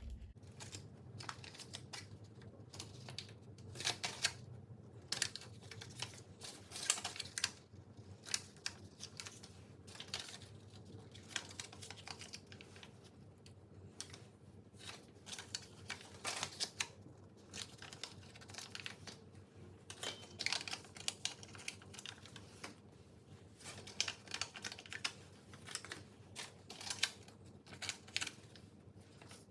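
Irregular light taps and clicks of hands working at a kitchen surface, setting cut pieces of mantou dough into plastic.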